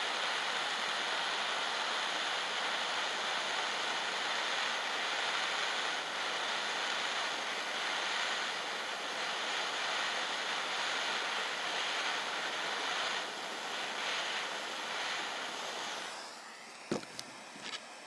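Handheld gas torch burning on a low blue flame with a steady hiss while it heats a terminal lug. The hiss fades out about two seconds before the end, followed by a few sharp clicks.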